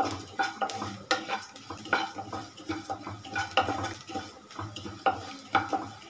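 Wooden spatula stirring cumin and coriander seeds frying in a little oil in a pan: quick, irregular scrapes and taps against the pan, several a second, over a sizzle.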